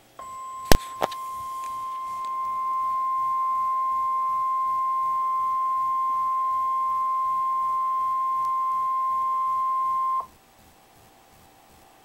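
NOAA Weather Radio 1050 Hz warning alarm tone: one steady high tone held for about ten seconds that cuts off sharply, announcing a severe thunderstorm warning. Two sharp clicks come just after the tone starts.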